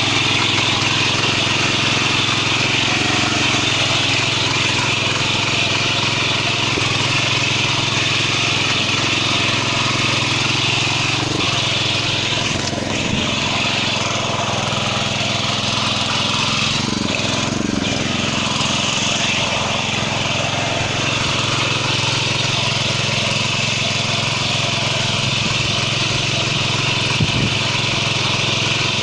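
Maijo M700 ECO 7 hp petrol power weeder's engine running steadily under load as its rotary tines churn through soil.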